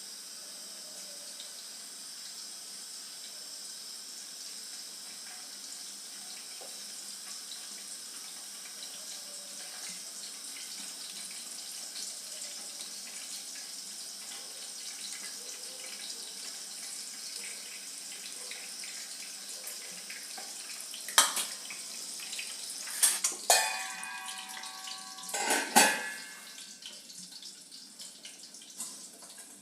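Boiled egg-white halves frying in hot oil, a steady sizzle. About three-quarters of the way in, a few sharp metal clinks against the pan, some of them ringing, are the loudest sounds.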